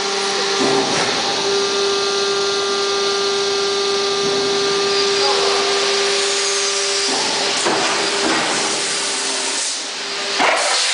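Plastic injection moulding machine running a bucket-mould cycle: a steady whine over a hiss, which changes about seven seconds in as the machine moves on to opening the mould, with a short hissing surge near the end.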